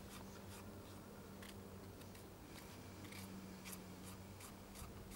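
Dried herbs and powdered resin being ground and scraped in a mortar bowl: faint, irregular scratchy clicks, with a low steady hum underneath.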